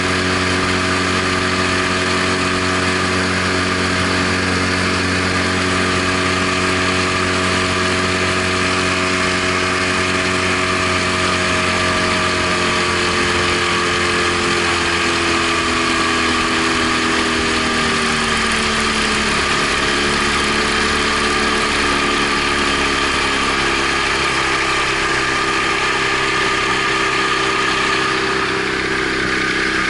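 Outboard motor running steadily as it pushes a small boat along. Its pitch eases down a little around the middle and then holds steady.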